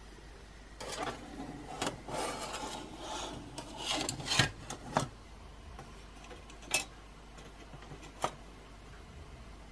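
Thin sheet-metal can windscreen and wire pot supports of a homemade alcohol stove handled by hand: a few seconds of rubbing and scraping, then two sharp clicks.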